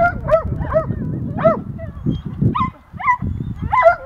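Dog barking in a rapid string of short barks, about eight in four seconds with a brief lull near three seconds in. It is barking up at a squirrel it has treed.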